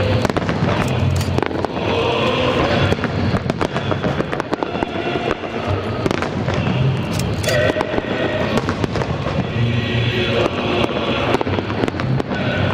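Aerial firework shells bursting in close succession: many sharp bangs following one another, with music playing under them.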